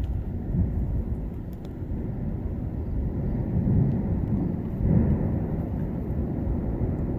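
Tajogaite volcano erupting: a continuous low, deep rumble with louder surges about three and a half and five seconds in, the sound of its ongoing explosions.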